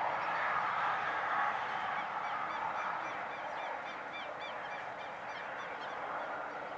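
Steady outdoor background noise of distant traffic, with a quick run of short, high chirps from about two to four seconds in.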